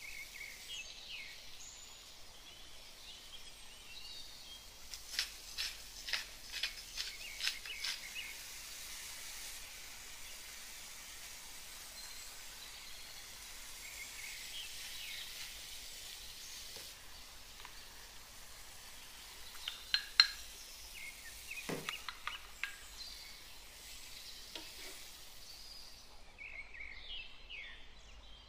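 Ground meat and shredded vegetables sizzling in a frying pan as a wooden spoon stirs them, with runs of sharp clacks about five seconds in and again about twenty seconds in.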